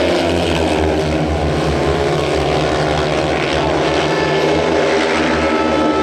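Four speedway motorcycles, 500 cc single-cylinder methanol engines, racing together in one loud, steady, layered engine drone.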